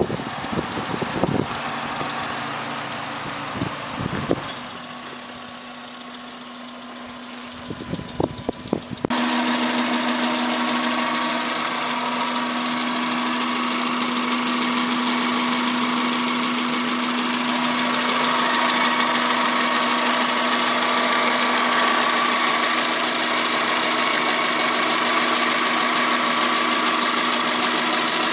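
1999 Subaru Legacy 2.0i's 2.0-litre flat-four boxer engine idling, heard close over the open engine bay. For the first nine seconds it is fainter, with a few thumps. Then it comes in suddenly louder as a steady, even hum with a higher whine.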